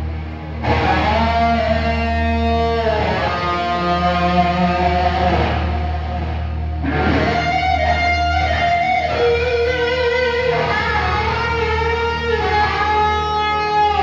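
Live rock band playing an instrumental passage: electric guitars carry a melody of long held notes that bend in pitch, over a steady bass. The music drops back briefly twice, just after the start and again about halfway through.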